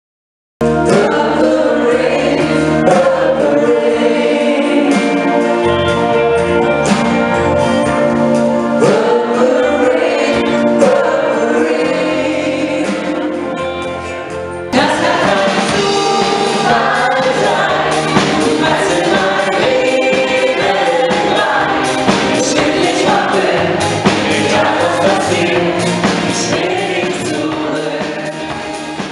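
Live band of electric bass, keyboard, drum kit and electric guitar playing, with a woman singing lead and many voices singing along. Music starts about half a second in, fades slightly, then cuts abruptly to a different song about halfway through.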